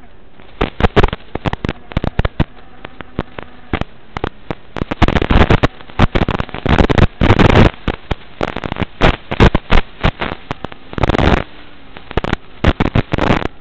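Loud, irregular crackling and popping static from an FPV drone's video recording, bunched into dense bursts around the middle and near the end over a steady hiss.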